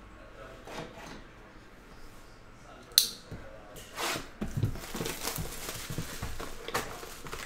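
Plastic shrink wrap being torn and pulled off a sealed trading card box, crinkling and rustling, after a single sharp click about three seconds in.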